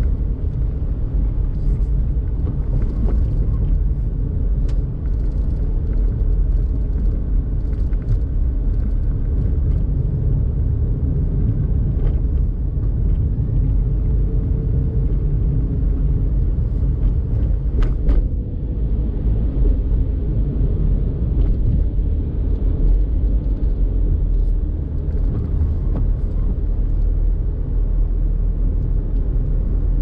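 Daihatsu Mira Tocot driving, its engine and tyres making a steady low road rumble, with a few light knocks along the way.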